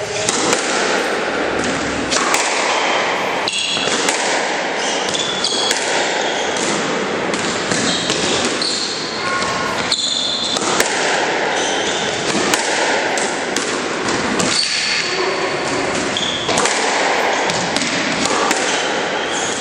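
Squash rally: repeated sharp racket hits and the ball smacking the court walls and floor, with short high shoe squeaks on the court floor, over a steady background of voices.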